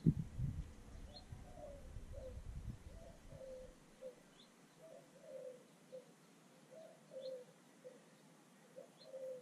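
A dove cooing over and over, a string of low, soft coos, with a faint high chirp from a small bird every second or two. A low rumble fills the first few seconds.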